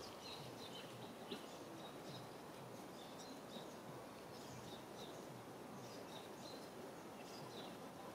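Faint outdoor ambience with small birds chirping: short, high chirps repeating several times a second over a steady low hiss.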